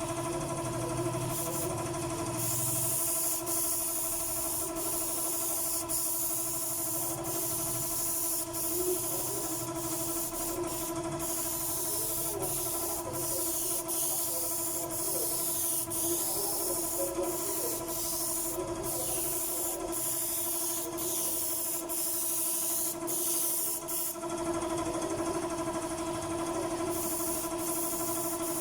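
A spray gun hisses in long passes with short breaks, most heavily from a few seconds in until near the end, over the steady hum of a running motor, likely an air compressor, while sanding sealer or lacquer is sprayed.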